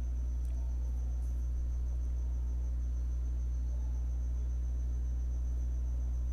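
Steady low electrical hum with a thin, constant high-pitched whine over it; no clear brush or other handling sounds stand out.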